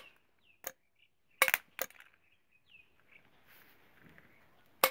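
Sharp electrical snaps and clicks, about five, from a wire from a car battery being tapped against a tractor self-starter motor's terminal on a bench test. Two come close together about a second and a half in, and one comes at the very end.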